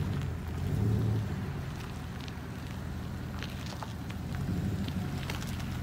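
An engine running at low speed with a steady low hum, swelling louder about a second in and again past four seconds, with a few faint clicks over it.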